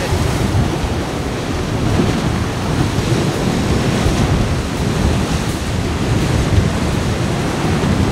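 Surf crashing under a rocky sea arch and spouting through blowholes: a continuous, heavy rumble with wind buffeting the microphone.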